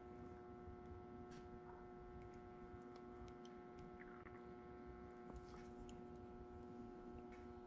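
Near silence: a faint steady electrical hum, with a few light clicks scattered through it.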